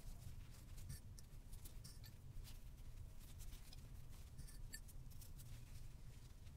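Faint rustling of folded cotton fabric being handled and tucked by hand, with a few light scattered clicks.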